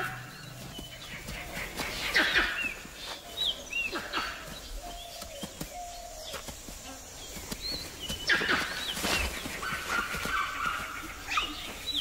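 Wild animal calls: a few sharp cries, loudest about two seconds in and again around eight to nine seconds and near the end, with short high chirps in between.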